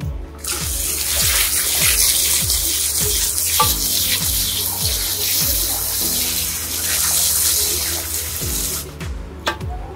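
Water spraying from a salon basin's handheld shower sprayer onto a wig, rinsing product out of it. The spray starts about half a second in and cuts off near the end, over background music with a steady beat.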